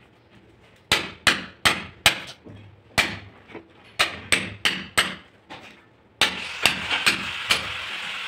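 Hammer striking a steel chisel, chipping at concrete and mortar at the base of a wall: a quick run of sharp metallic strikes, two or three a second. About six seconds in, background music comes in under the last strikes.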